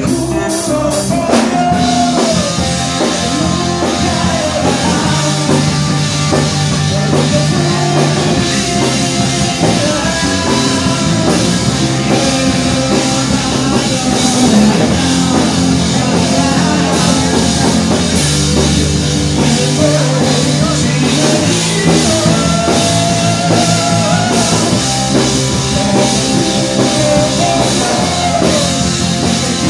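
A live rock band playing: a male singer over drums, electric bass and electric guitar, loud and steady throughout.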